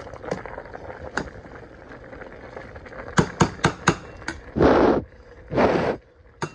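A metal spoon knocking against a stainless steel pot of cabbage: four quick sharp taps a little past the middle, then two short bursts of scraping noise and another tap at the end.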